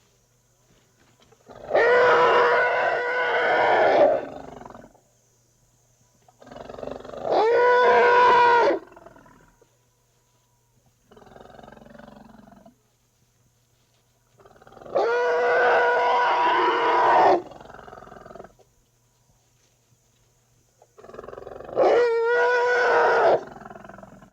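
Big-cat roar sound effects: four long, loud roars a few seconds apart, with a quieter, shorter growl between the second and third.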